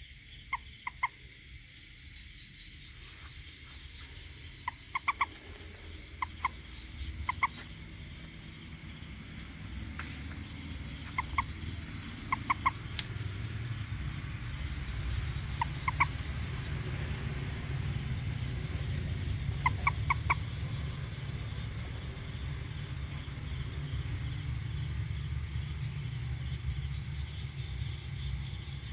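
An animal calling in short, pitched notes grouped in twos and threes, each group a few seconds apart, over a low rumble that grows louder after about ten seconds.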